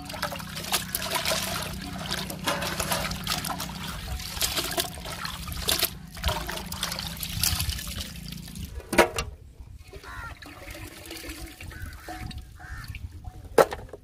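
Hands sloshing and rubbing dressed quail in a pot of water, washing the birds with steady splashing for about the first nine seconds. Two sharp knocks follow, one about nine seconds in and one near the end.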